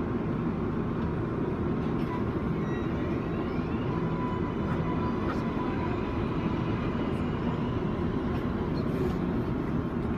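Steady rumble and hum inside a Kawasaki R188 subway car, with a thin steady tone running through it.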